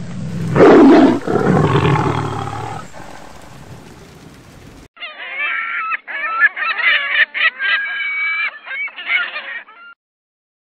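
A lion roars once, loudest about half a second to a second in, then trailing off over a few seconds. After a short gap, a gull gives a series of wavering calls for about five seconds.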